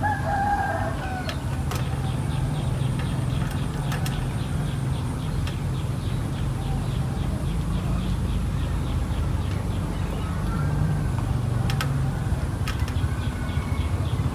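Steady low outdoor rumble with a chicken clucking now and then, briefly near the start and again about ten seconds in.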